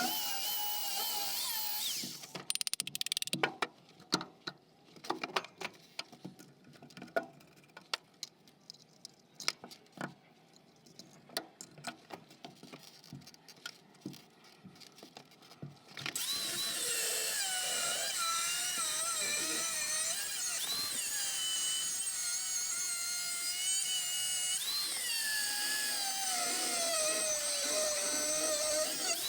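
Electric grinder cutting into metal, its pitch dipping and recovering under load. It stops about two seconds in, leaving a stretch of scattered metal clicks and knocks, then starts cutting again a little past halfway and runs on.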